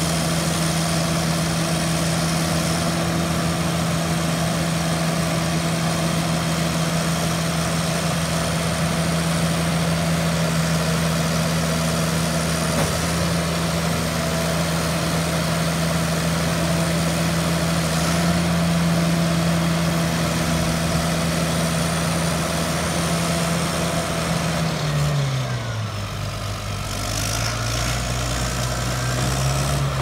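Caterpillar D6N crawler dozer's 3126B six-cylinder diesel running steadily while parked. About 25 seconds in its engine speed drops and it settles into a lower idle.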